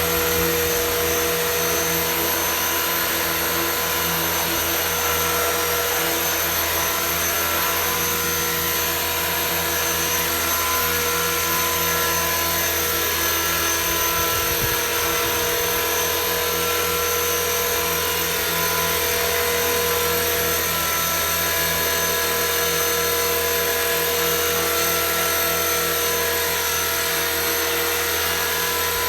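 Electric 450-size RC helicopter with an MD500E scale body in flight: the motor and rotor run at a constant speed, giving a steady high-pitched whine over a rotor hum.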